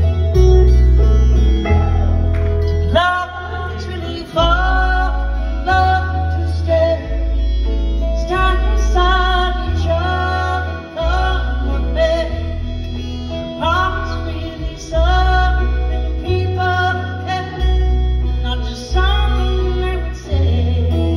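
Country band playing live: a female lead vocal over guitars and a held, note-by-note upright bass line.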